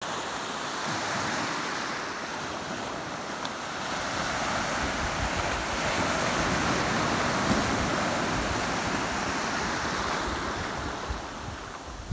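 Small ocean waves breaking and washing in over the shallows, the surf swelling louder in the middle and easing off near the end.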